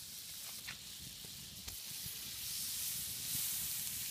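Butter sizzling and foaming in a flat pan over a campfire, getting louder about two seconds in as the pan heats.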